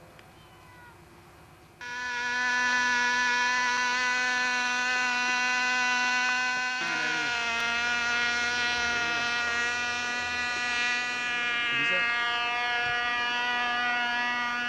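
Small two-stroke glow-plug model airplane engine running at high, steady revs, a thin, insect-like buzz that cuts in suddenly about two seconds in.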